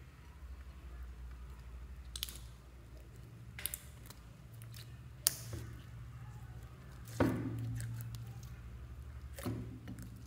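Thick glossy slime, a mix of several store-bought slimes, being stretched, folded and pressed by hand in a glass bowl: soft wet squishing broken by five short sharp clicks, the loudest about seven seconds in.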